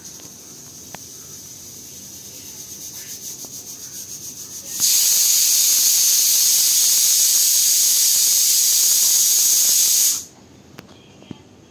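Kitchen pressure cooker whistle. A pulsing steam hiss builds for the first few seconds, then turns into a loud, steady hissing whistle for about five seconds that cuts off suddenly.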